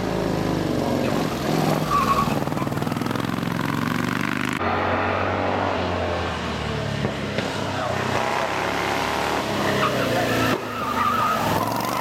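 Vintage racing car engines running hard under acceleration, the engine note rising and falling through the bends. The sound changes abruptly twice, between passes of different cars.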